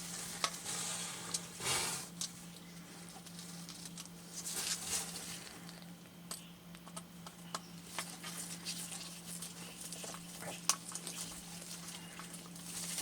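Faint ticks and short scrapes of a small screwdriver turning tiny screws into the plastic housing of a radio's display unit, tightened only lightly. A steady low hum runs underneath.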